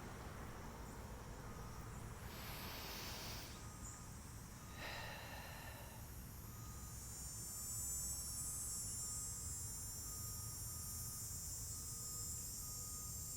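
Faint outdoor ambience: a high insect trill, crickets among it, swells in about seven seconds in and holds steady over a low rumble. Two soft breaths come in the first six seconds.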